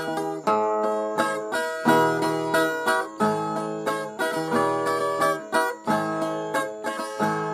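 Viola, a Brazilian ten-string folk guitar, playing an instrumental passage between sung verses: a run of picked notes and chords, each note ringing on.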